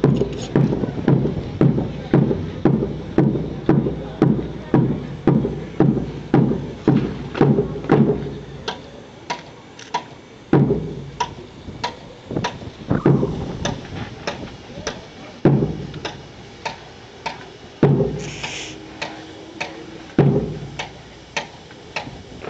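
A drum beating time for marching drill, about two beats a second for the first eight seconds. It then slows to a heavy stroke every two and a half seconds or so, with lighter taps in between.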